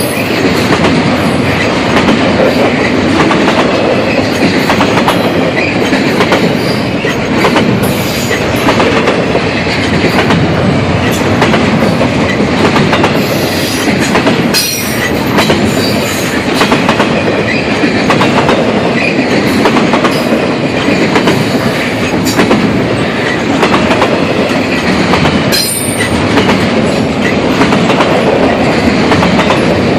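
CSX intermodal freight train's cars rolling steadily past, loud, with the wheels clicking over rail joints.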